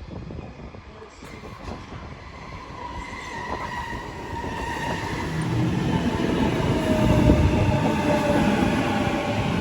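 Electric passenger train coming into the station, growing steadily louder, with a rumble and a high whine that slowly falls in pitch.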